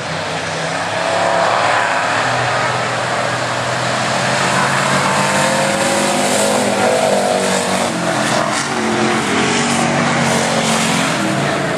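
Several stock and modified race cars running hard on a dirt track, their engines overlapping and rising and falling in pitch as they pass.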